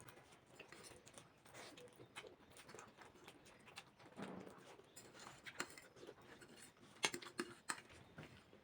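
Faint sounds of eating black bean sauce instant noodles: scattered small clicks and taps of utensils against a bowl, with the loudest cluster about seven seconds in.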